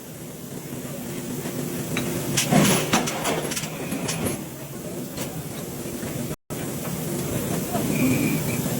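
Forge-shop machinery noise: heavy forging equipment running with hissing and a few metallic knocks and clanks, the sound cutting out for a moment about six seconds in.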